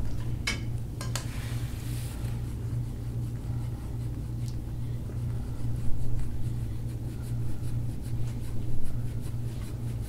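A steady low hum, with two sharp clicks about half a second and a second in, and faint rubbing of hands working over skin.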